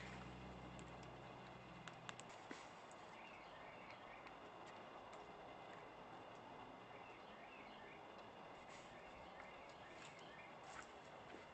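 Near silence: quiet room tone with faint bird chirps in the middle and a couple of faint clicks about two seconds in.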